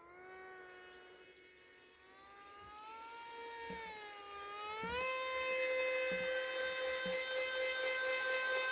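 Small electric motor and propeller of an RC model plane whining: the pitch wavers and dips, rises about five seconds in, then holds steady as it gets louder.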